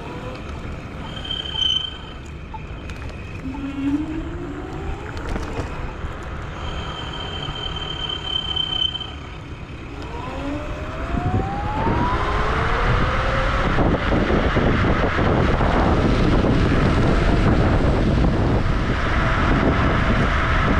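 Wolf Warrior electric scooter's dual hub motors whining, the pitch rising as the scooter accelerates about ten seconds in, after which wind rushes loudly over the chest-mounted microphone at speed under a steady motor whine. A thin high squeal sounds briefly twice in the first half.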